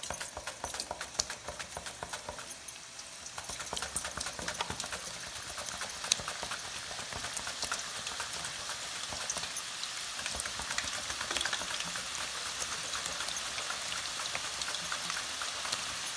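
Raw nendran banana being sliced on a hand slicer straight into hot refined oil: quick, even strokes for the first few seconds. Then the oil sizzles and crackles steadily as the slices fry.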